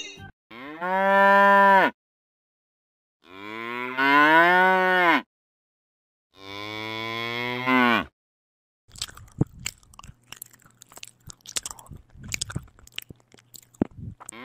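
Cow mooing three times, each a long drawn-out call, the second the longest. Then a cow crunching and chewing dry hay, a run of irregular crackling crunches lasting about five seconds.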